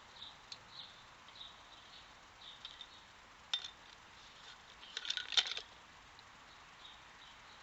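A sharp clink about three and a half seconds in, then a quick cluster of clinks and rattles about five seconds in: sticks and hard treats knocking in and against a Kerplunk feeder pipe as a red fox works at it.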